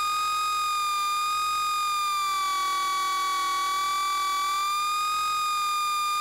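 Steady high-pitched whine from the Bixler 3's electric pusher motor and propeller in flight. The pitch sags a little around the middle and then holds.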